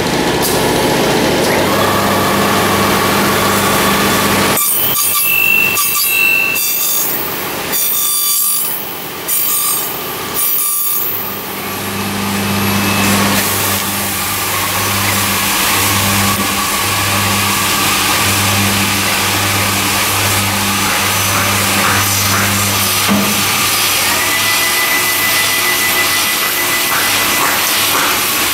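CMC-615 CNC corner cleaning machine running, its cutter motors whirring and the tools cutting away the weld seam at a uPVC window frame corner, over a steady low hum. The noise drops out and breaks several times in the middle, then runs on steadily.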